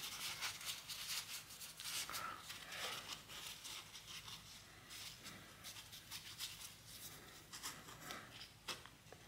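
Faint rustling and crinkling of a paper towel being twisted and pushed down into a suspension fork's upper tube, with many small scattered clicks.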